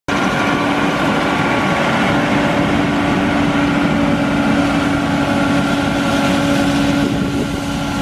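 Claas Lexion 740 combine running in a soybean field, a steady drone with a constant hum.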